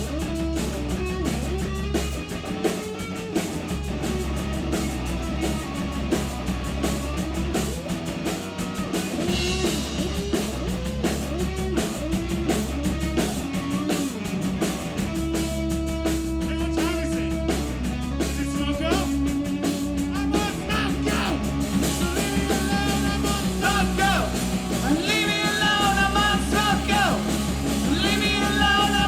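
Live rock band playing a fast punk-rock song: electric guitar, bass and drums, with a singer's voice over them, most plainly in the last third.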